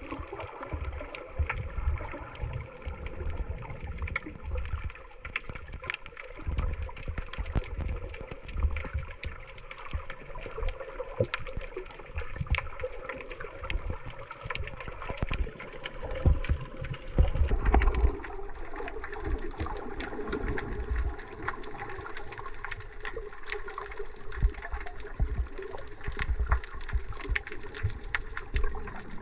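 Underwater recording: muffled water noise through a camera housing, with many sharp clicks and a faint steady hum. There is a louder rush about two thirds of the way through.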